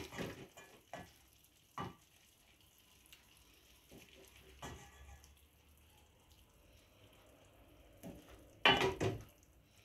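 A wooden spoon stirs and scoops a wet vegetable stew in a stainless steel pot. A few single knocks of spoon on pot are spaced out, with quiet stirring between them, and a louder short clatter comes near the end.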